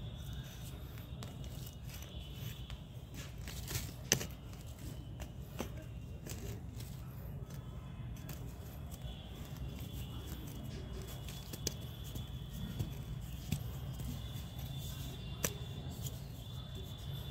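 Metal tines of a small hand cultivator scratching and raking through dry, crumbly soil and dead stalks, with a few sharp clicks, the loudest about four seconds in, over a steady low hum.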